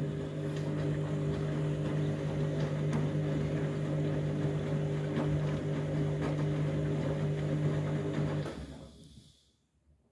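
Washing machine running with a steady low mechanical hum, which cuts out about eight and a half seconds in and dies away to near silence.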